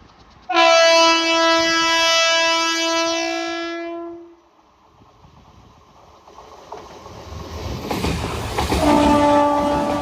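Indian Railways electric train's horn sounding one long, loud blast of about three and a half seconds, then the running noise of the approaching train growing louder, and the horn sounding again near the end.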